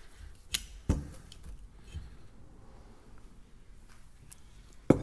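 Scattered sharp metallic clinks and knocks of tools and metal clutch parts being handled on a workbench, the loudest near the end.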